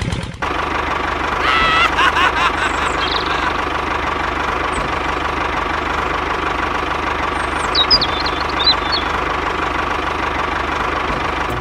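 A tractor-like engine running steadily. Short high chirping calls come through about two seconds in and again near eight seconds.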